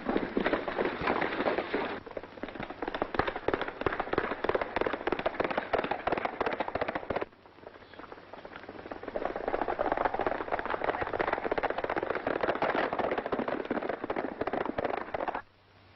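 Galloping horses' hoofbeats with cracking gunshots in a western film soundtrack. The sound drops away briefly about seven seconds in, then resumes and cuts off suddenly near the end.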